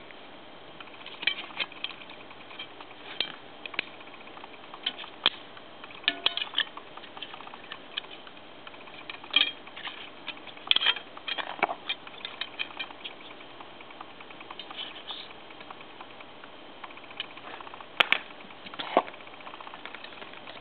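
Scattered small clicks, taps and light scrapes of a thin photo-etched metal part being folded up against the edge of an etch-bending tool with a plastic blade, irregular and spaced a second or more apart, with a sharper click near the end.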